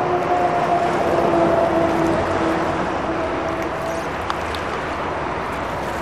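A motor engine's steady hum that drifts slightly lower in pitch, over a steady rushing noise.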